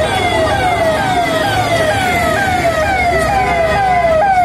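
Electronic siren sounding a repeating falling wail, the pitch sliding down and snapping back up about twice a second, over market crowd noise.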